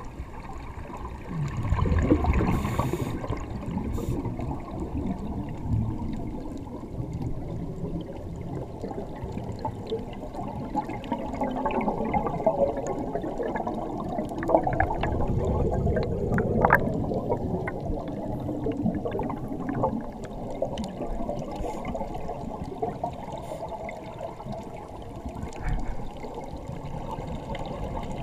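Muffled underwater water noise with the gurgle of scuba divers' exhaled bubbles, and scattered faint clicks near the middle.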